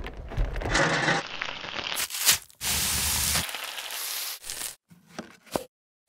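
Quick-cut string of short grilling sounds: food crackling and sizzling on a grill, with a sharp crack about two seconds in. The sounds change abruptly from one cut to the next and stop just before the end.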